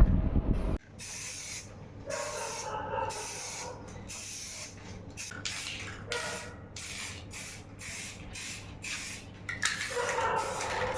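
Repeated short bursts of hissing, about a dozen, each lasting well under a second, following a loud low rumble that cuts off abruptly under a second in.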